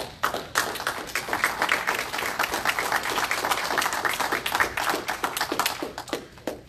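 Congregation applauding at the end of a sermon: many hands clapping steadily, thinning to a few scattered claps near the end.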